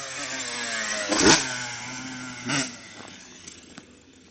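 Motocross dirt bike engine revving up and down as the rider accelerates along the track, with two brief louder peaks about a second in and at about two and a half seconds. The engine note then fades as the bike moves away.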